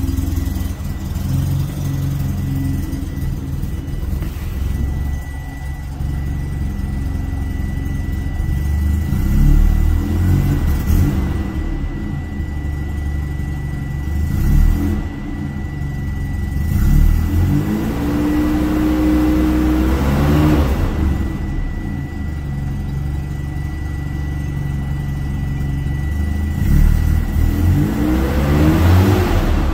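1982 Mazda RX-7's 12A twin-rotor rotary engine running just after a cold start without choke, after sitting for over 24 hours. It idles near 1,000 rpm, and the revs rise and fall twice, about two-thirds of the way through and again near the end.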